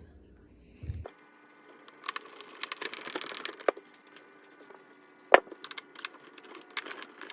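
Scattered clicks, scrapes and knocks of hard plastic parts being handled as a back wheel is refitted to a Pentair Racer pool cleaner, with one sharp knock about five seconds in.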